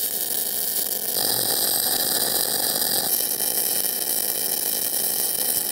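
MIG welding arc running steadily while a fillet weld is laid by hand along a flat bar tacked to a steel I-beam, with 0.035 in Böhler solid wire at 25.6 volts. The sound changes abruptly about a second in and again about three seconds in.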